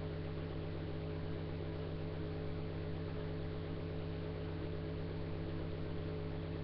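Steady low electrical hum with a constant hiss, unchanging throughout.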